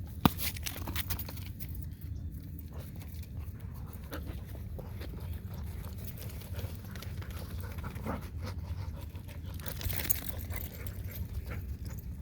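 Dogs moving about and panting, over a steady low rumble. A sharp click comes about a quarter of a second in, and a brief louder rustle about ten seconds in.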